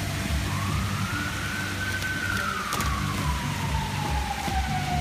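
A siren wailing, its pitch rising, then falling slowly and rising again near the end, over dance music with a steady bass beat.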